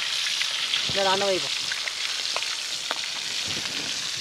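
Steamed mutton pieces deep-frying in hot oil in a wide iron kadai, being roasted crisp: a steady sizzling hiss with scattered crackles, as a slotted steel ladle stirs them. A short pitched, voice-like sound cuts in about a second in.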